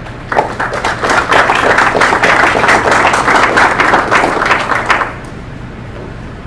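Audience applauding: many hands clapping at once, starting just after the beginning and stopping about five seconds in, over a faint low steady hum.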